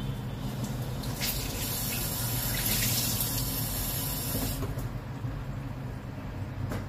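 Kitchen tap running into a stainless steel sink while a cloth is rinsed under it. The water starts about a second in, runs for about three and a half seconds, then stops.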